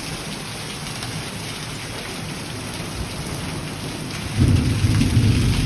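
Heavy monsoon rain pouring steadily, with a low rumble of thunder breaking in a little over four seconds in.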